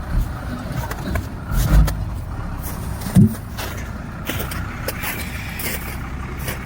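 Roll-off truck's engine running steadily, with scattered knocks and clunks and one louder thud about three seconds in.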